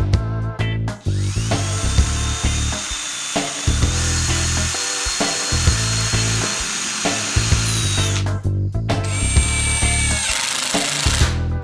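Total cordless drill boring into wood, with a steady whine. A long run steps up in pitch about four seconds in and stops about eight seconds in; a shorter run follows about a second later and winds down. Background music with a steady beat plays throughout.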